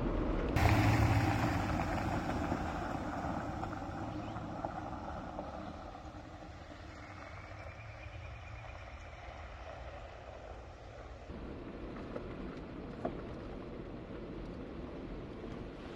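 Off-road vehicle driving on a rough dirt road, with engine and tyre noise. It gets suddenly louder about half a second in, then fades over the next several seconds, and the sound changes abruptly about eleven seconds in.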